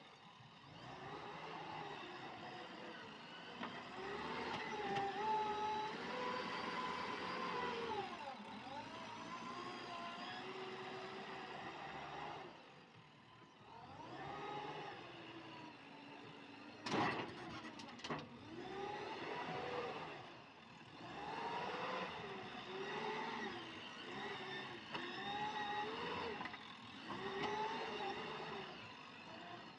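Heavy machinery diesel engine running, its pitch rising and falling again and again as it is worked, with one sharp clank about 17 seconds in.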